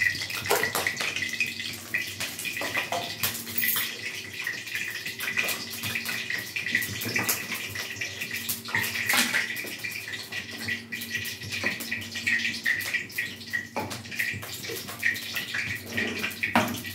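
Hot mustard oil sizzling and crackling in steel woks on a gas stove, a steady hiss with many small pops throughout.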